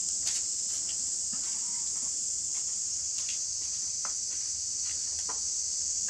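Steady high-pitched drone of an insect chorus, with a few short clicks and rustles scattered through it.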